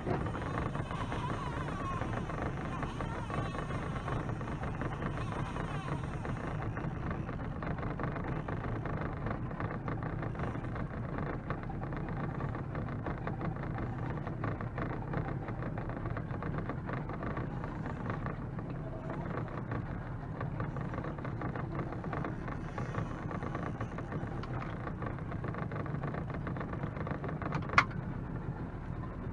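Boat's outboard motor idling, a steady low hum, with one sharp click near the end.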